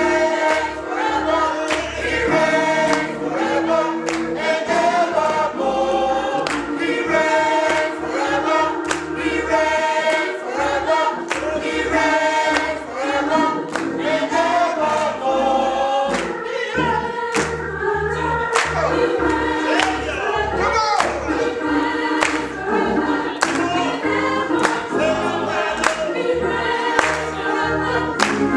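Youth and young adult gospel choir singing an upbeat song. The singing runs over a steady beat of sharp hand claps and a low bass line.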